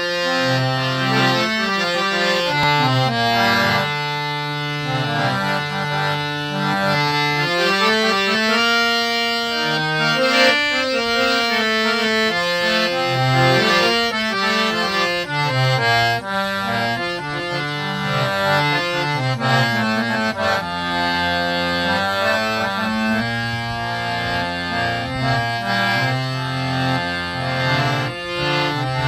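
Harinam harmonium fitted with three sets of English reeds, played continuously while its bellows are pumped by hand. It gives a melody of sustained, reedy notes, often several sounding at once.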